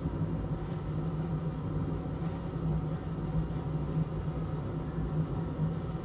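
A steady low machine hum over a faint rumble.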